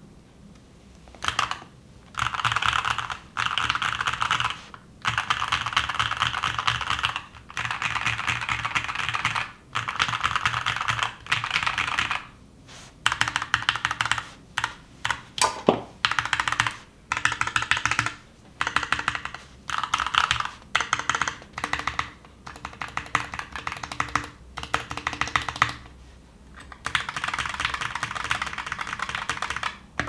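Typing on a GK61 60% keyboard fitted with Gateron Oil King linear switches: rapid runs of keystrokes with a deep sound, in bursts of a second or two with short pauses between. About halfway through, one louder keystroke rings on briefly.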